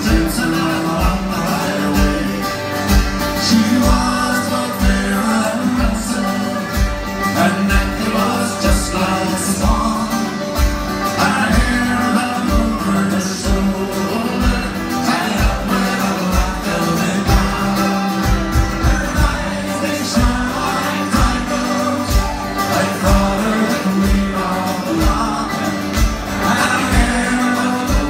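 Live folk band playing: acoustic guitars and banjos strummed over a steady beat, with singing.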